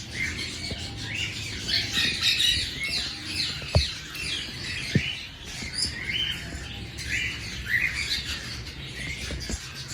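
A flock of small aviary birds chirping and chattering continuously, many short high calls overlapping. Two sharp knocks stand out, a little under four seconds in and again about a second later.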